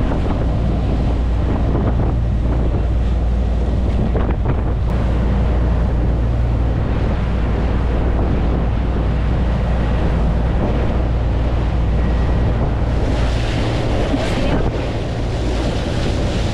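Large party fishing boat under way: a steady low engine drone, with water rushing and spraying along the hull and wind buffeting the microphone. The hiss of spray and wind grows brighter near the end.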